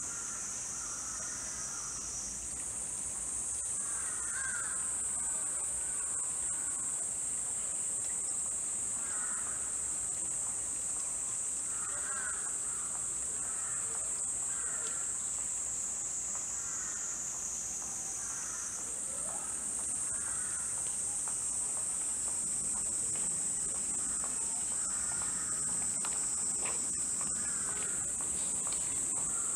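Cicadas shrilling in a steady high-pitched chorus, the pitch stepping up slightly a couple of seconds in and again about two-thirds through. Short bird calls repeat faintly underneath.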